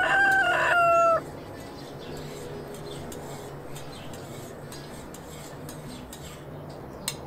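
A rooster crowing once, a loud pitched call with a long held last note that dips slightly in pitch before it ends about a second in.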